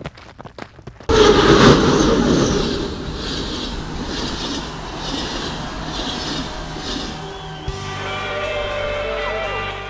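Running footsteps on a gravel path, cut off about a second in by a sudden loud rushing noise with a regular clatter. Near the end, guitar music takes over.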